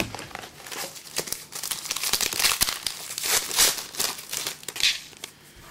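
Trading-card pack wrapper being torn open and crinkled by hand, a run of rustling bursts that is busiest in the middle and dies down near the end.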